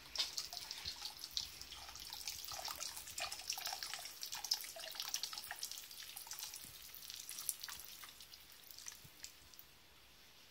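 A thin stream of melted wax poured into a tub of cold water, pattering and dribbling with many small ticks as it hits the surface and sets into flakes. The stream thins out and stops about nine seconds in.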